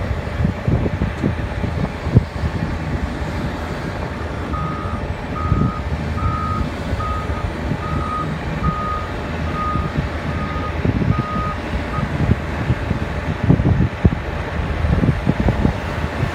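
Hyundai HL940XT wheel loader's Cummins diesel engine running, with its reverse alarm sounding about ten evenly spaced beeps from a few seconds in until about two-thirds of the way through.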